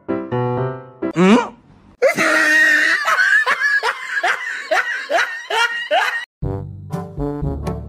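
Laughter, a quick run of falling 'ha' sounds lasting about four seconds, set between stretches of background music: piano-like notes with a short rising boing before it, and a brass-led tune after.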